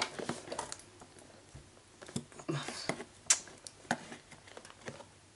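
Cardboard toy box being handled: scattered light clicks and taps at an irregular pace.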